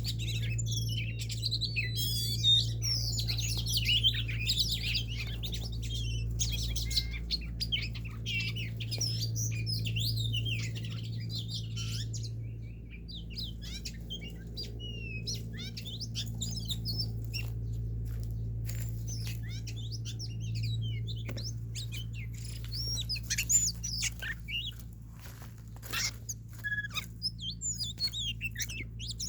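Songbirds chirping and calling rapidly, busiest in the first dozen seconds and more scattered after, over a steady low hum.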